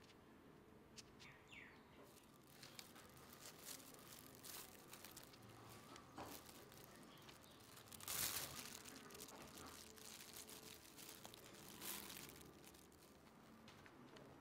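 Quiet handling noise from assembling a cake: faint taps and rustles, with a brief louder crinkle of a plastic food glove about eight seconds in and another short rustle near twelve seconds.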